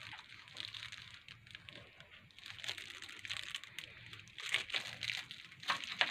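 Irregular crinkling and rustling with scattered small clicks, as of something being handled close to the microphone. There is a faint steady low hum underneath.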